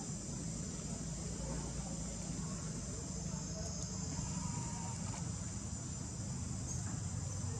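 Steady high-pitched drone of an insect chorus, over a steady low rumble.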